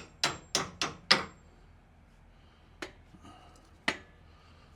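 Hammer blows on the steel lower mount of a shock absorber on a 1967 Volkswagen chassis, knocking the shock loose. A quick run of five blows comes in the first second or so, then two single blows about three and four seconds in, with light metal clinks between.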